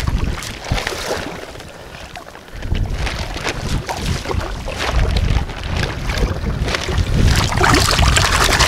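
Shallow seawater sloshing and splashing around hands and waders, with wind buffeting the microphone. The low wind rumble dies away about a second in and comes back strongly about two and a half seconds in.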